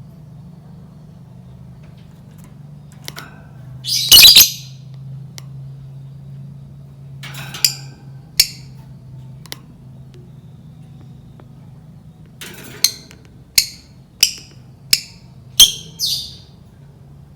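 Lovebird giving loud, shrill squawking calls: one harsh burst about four seconds in, two short calls around eight seconds, then a quick run of six sharp calls near the end. A steady low hum runs underneath.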